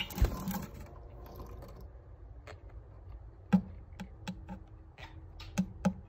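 A handful of light clicks and taps, irregularly spaced, starting about two and a half seconds in, over a faint steady hum.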